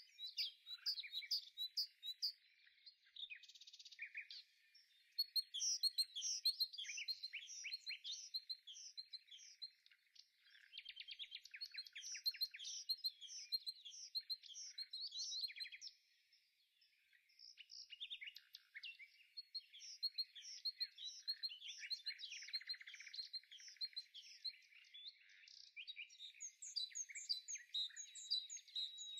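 Songbirds chirping and trilling continuously, a dense run of quick high-pitched notes with short lulls.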